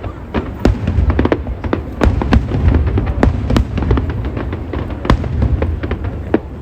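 Aerial fireworks going off in rapid, irregular succession: many sharp cracks and pops over a continuous low rumble of booming shell bursts.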